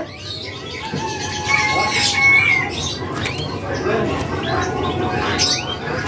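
Caged songbirds calling: several drawn-out whistled notes and short rising and falling chirps, with a murmur of voices behind.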